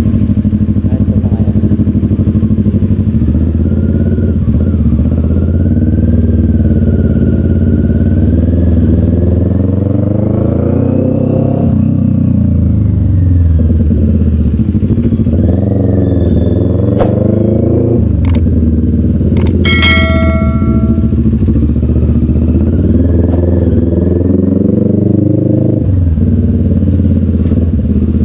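Motorcycle engine running while riding, its pitch rising and falling with the throttle. A few sharp clicks come around the middle, followed by a short high tone lasting about a second.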